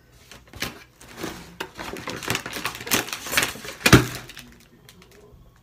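Rubber bands being stretched and snapped one after another around a tightly bound bag: a string of short sharp snaps, the loudest about four seconds in.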